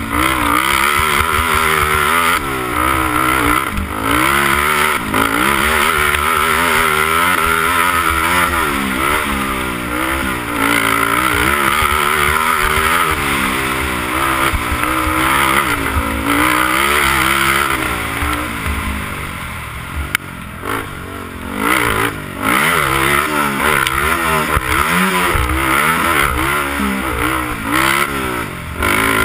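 Honda TRX300EX quad's single-cylinder four-stroke engine heard from on board under race throttle, its pitch rising and falling over and over. It eases off for a couple of seconds about two-thirds of the way through, then pulls hard again.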